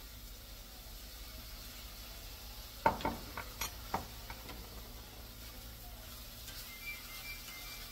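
Sliced kielbasa sizzling faintly in a skillet as it is stirred; the utensil knocks and scrapes against the pan in a quick cluster of clinks about three seconds in.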